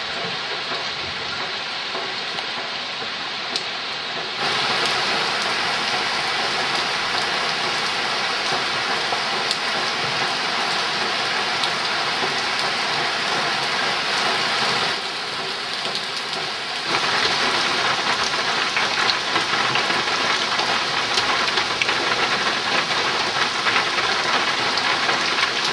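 Heavy monsoon rain pouring steadily onto trees and foliage, a dense even hiss. It gets louder about four seconds in, drops back for a couple of seconds past the middle, then comes back louder.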